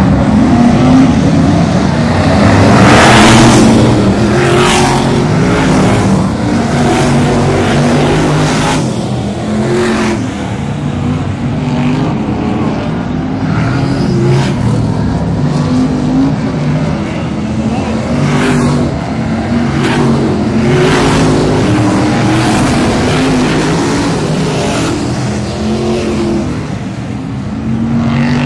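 BriSCA F1 stock cars' V8 engines racing round the oval, with several cars passing close by one after another and engine notes rising and falling as they accelerate and ease off.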